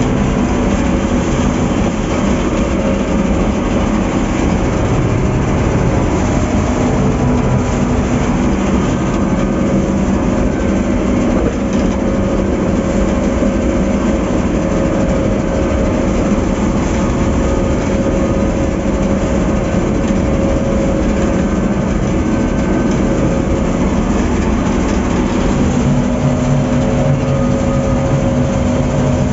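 Combine harvester running steadily under load while harvesting soybeans, heard from inside the cab: a loud, continuous engine and threshing-machinery drone with a few steady hum tones.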